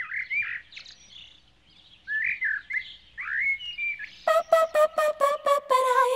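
Birds chirping and twittering in short separate calls, then about four seconds in a funk track starts abruptly with a fast, even beat and a melody line.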